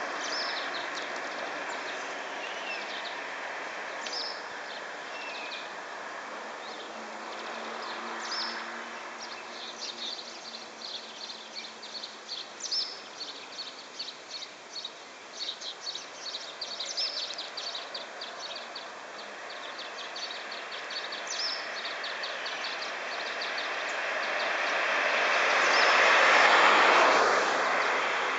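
Small birds chirping in many short, high notes in quick succession over a steady outdoor hiss. Near the end a passing vehicle swells to the loudest point and fades away.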